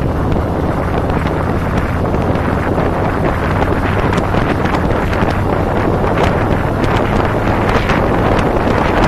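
Heavy wind buffeting on the microphone of a camera mounted on a moving cruiser motorcycle, over the steady low running of the bike's engine.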